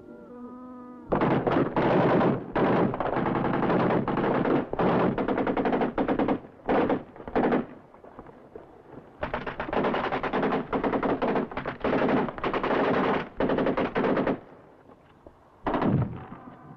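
Long bursts of automatic gunfire from an old film's soundtrack. Several bursts run on for about seven seconds, then stop briefly, then more bursts follow, with one short final burst near the end.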